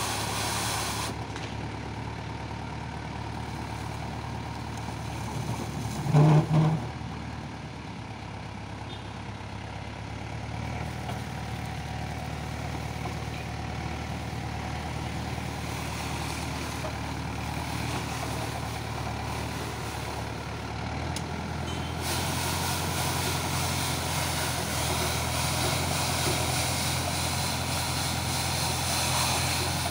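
Diesel tractor engine running steadily as it drives a hydraulic road-sweeper brush scrubbing along asphalt. There is a brief loud low-pitched sound about six seconds in, and the brush's hiss grows stronger in the last third.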